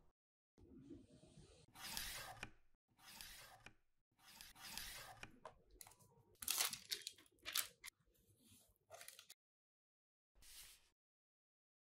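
Hands handling a cardboard tablet box and its plastic wrapping: a string of short tearing, crinkling and scraping sounds with dead-silent gaps between them, and one last brief rustle near the end.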